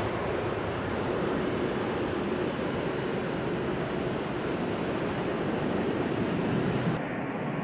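KC-135 Stratotanker's jet engines at takeoff power as the tanker lifts off and climbs away: a steady, even rush of jet noise. Near the end the sound turns abruptly duller.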